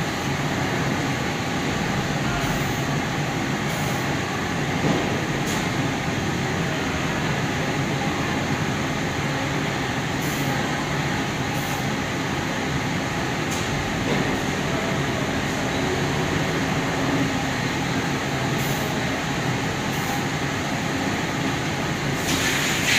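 Two-colour screen printing machine with a UV curing unit running: a steady mechanical rush, with short faint hisses at irregular intervals and a louder hiss near the end.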